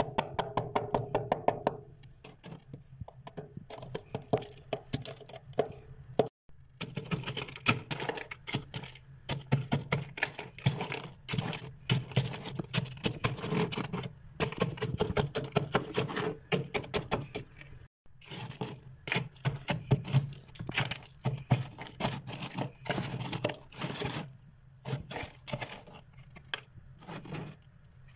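Freezer frost and ice being scraped, broken and crunched: a dense, continuous run of crisp crackles and scratches.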